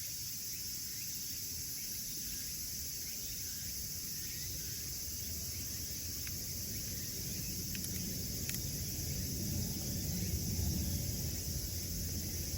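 Wood fire burning in a small wood stove, with a few sharp crackles and pops partway through and a low rumble that builds over the last few seconds. Steady high-pitched insect chirring runs underneath.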